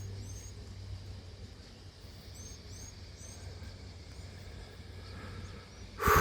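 A flock of small birds giving faint, short, high chirps over a steady low hum. Just before the end, a sudden loud rush of noise.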